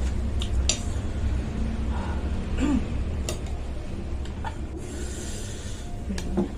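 Metal spoon clinking against a bowl a few separate times while eating bakso, over a steady low hum.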